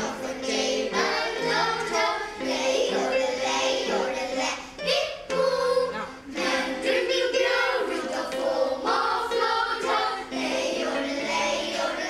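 A group of children singing a yodel together, their voices jumping up and down in pitch.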